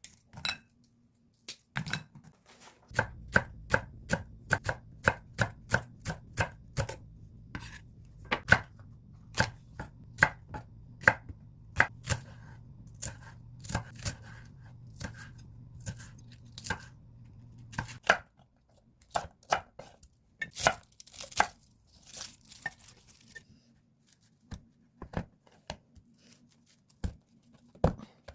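Kitchen knife chopping on a cutting board in a steady run of strikes, about three a second, over a low hum. Both stop about eighteen seconds in, and scattered lighter taps and knocks follow.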